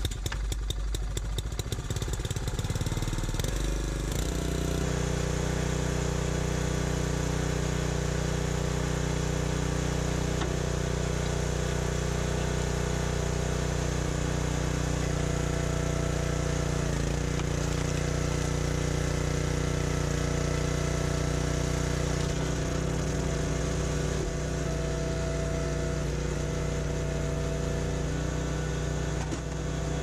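Honda GC single-cylinder four-stroke engine on a gas-powered hydraulic log splitter starting. It runs unevenly for the first few seconds, then settles into a steady run at a set speed and keeps going while the splitter works through maple rounds.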